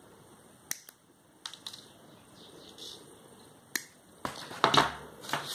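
Nylon fishing line being snipped with pliers' cutters, trimming the tag ends of a freshly tied hook knot. It makes a few sharp, separate clicks, with a brief rustle of handling near the end.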